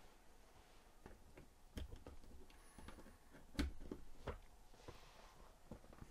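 A handful of faint, sharp clicks and light taps, the loudest about three and a half seconds in, from small handling of the plugged-in monitor and its power cord, over quiet room tone.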